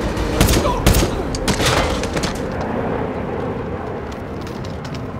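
Gunfire from rifles in a gunfight: a handful of sharp shots in the first two and a half seconds or so, then the shooting stops and only a low background haze remains.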